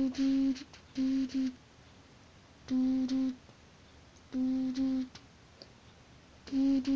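A person humming a simple tune in short held notes, about half a second each, almost all on the same pitch, with pauses of a second or so between them.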